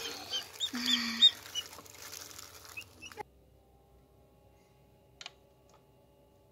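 Newly hatched chick peeping a few short high chirps while thin plastic gloves rustle as it is handled. About three seconds in the sound cuts to the faint steady hum of the egg incubator, with a single click.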